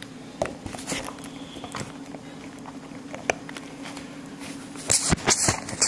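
Handling noise from a foam model plane: scattered clicks and rustles over a steady low hum, then a cluster of louder scrapes and clicks near the end as the flight battery's connector is plugged in to power the plane.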